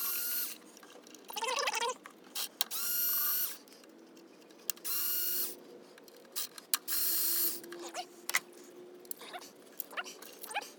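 A cordless driver runs in four short bursts of under a second each with a steady whine, backing out the ignition coil hold-down bolts; faint wavering whines come in between the bursts.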